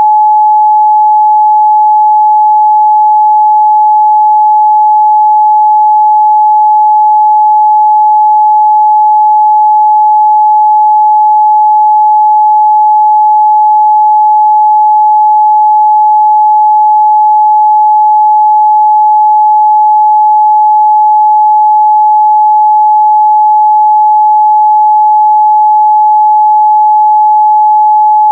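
A steady, loud 852 Hz sine-wave test tone, one pure pitch held without change.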